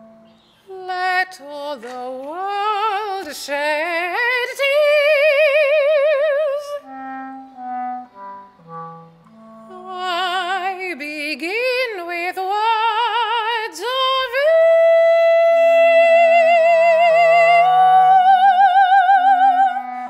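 A woman sings long notes with wide vibrato, sliding up into them, over a clarinet playing short steady low notes. The voice drops out for a few seconds in the middle, leaving the clarinet alone, then returns and settles on a long high held note that steps slightly higher near the end.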